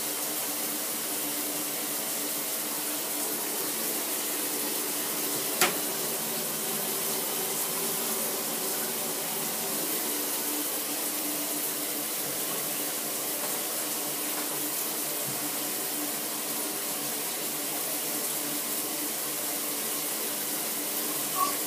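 Shower running steadily behind the curtain: a constant hiss of water spray. A single sharp click about five and a half seconds in.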